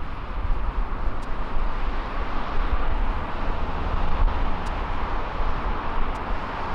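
Steady roar of jet aircraft engines with a deep low rumble, holding an even level throughout.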